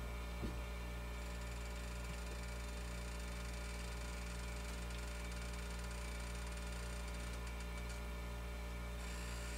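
Steady low electrical hum, with one faint tick about half a second in.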